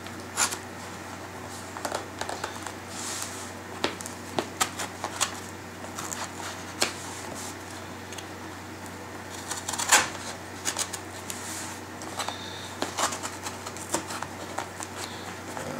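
A small blade scraping and picking at the packing tape and cardboard of a mailing box, irregular scratches and clicks, the sharpest one about ten seconds in.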